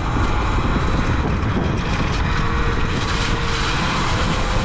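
Talaria Sting R electric dirt bike being ridden: a steady rushing noise of wind and its new knobby rear tire rolling, with a faint steady whine over it.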